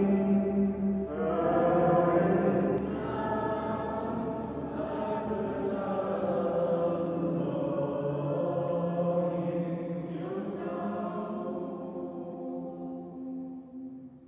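A choir singing a slow chant in long held notes, fading out at the end.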